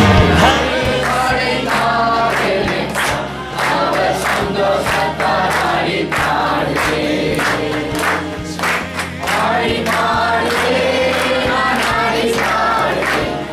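A congregation of men, women and children singing a hymn together, clapping along at about two claps a second.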